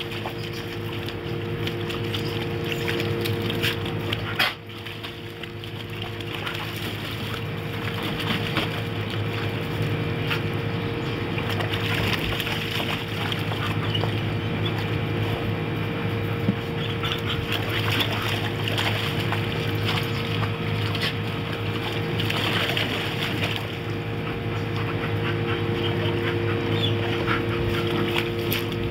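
A dog wading and pawing in a water-filled plastic kiddie pool: water splashing and sloshing around its legs, in uneven bursts.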